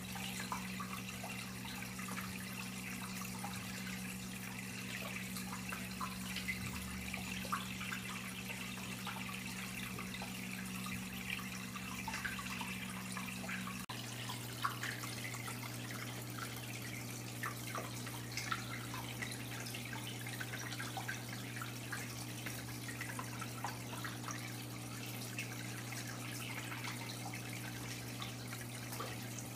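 Water trickling and dripping in a turtle tank, with many small drips over a steady low hum.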